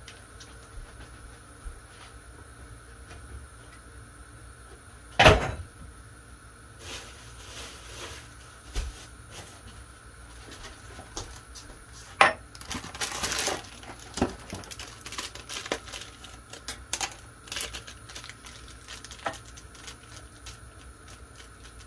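Kitchen handling noises: scattered clinks and knocks of jars and utensils on a worktop, the sharpest about five seconds in and another about twelve seconds in, followed by a brief rustle.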